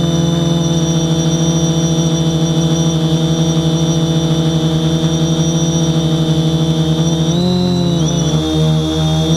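Quadcopter's electric motors and propellers whining steadily, recorded close up by its own onboard camera as a stack of steady tones. Near the end the pitch wavers up and down for about a second.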